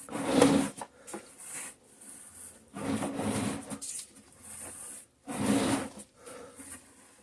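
A man breathing heavily close to the microphone, three loud rasping breaths a couple of seconds apart, from the exertion of the drain job.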